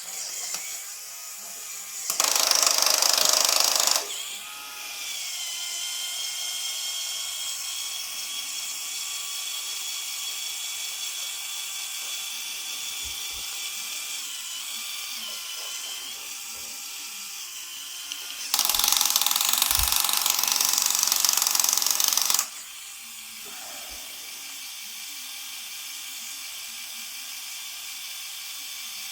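A Lego Technic model's small electric motor whirring through plastic gears, with a thin whine that wavers in pitch. Twice it runs much louder for a few seconds, first briefly about two seconds in, then for about four seconds past the middle.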